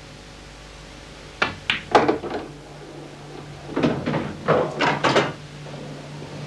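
Pool balls clacking during a shot: the cue strikes the cue ball and balls knock together as the yellow goes into the middle pocket. A cluster of sharp knocks comes about a second and a half in, and another run of knocks follows around four to five seconds in.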